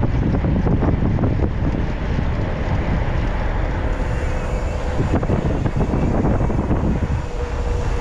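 Wind buffeting the microphone of a handlebar-mounted camera on a bicycle coasting fast downhill, a steady low rumble with a faint thin tone coming and going in the second half.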